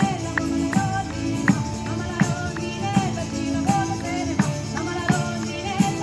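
Live folk song: a woman singing over a tambourine beaten in a steady rhythm, with a strong stroke about every three-quarters of a second and lighter jingling strokes between, and acoustic guitar accompaniment.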